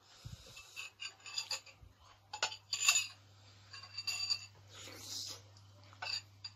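A spoon and beef bones clinking and tapping against a bowl as a bone is handled in the soup: a string of light clinks, the loudest about three seconds in.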